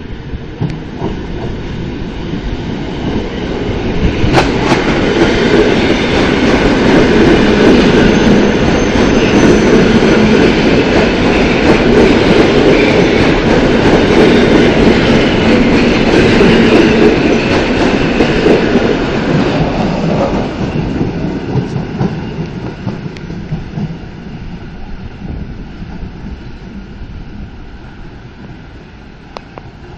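Two coupled EN57 electric multiple units running past along the platform, wheels clattering over the rail joints. The sound builds as the train comes near, is loudest for about ten seconds as it passes, then slowly fades away.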